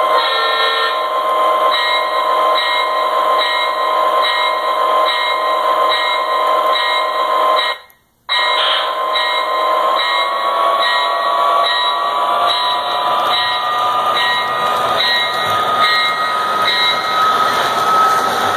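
Lionel O-gauge diesel locomotive running on the layout with its onboard diesel engine sound playing: a steady electronic engine drone with a rhythmic pulse about one and a half times a second. The sound cuts out briefly about eight seconds in, and later the engine pitch slowly rises.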